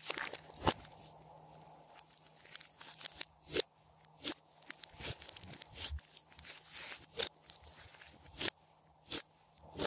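Glossy slime mixed with floam beads being squeezed and kneaded by hand, giving irregular sharp pops and crunchy crackles, roughly one every second.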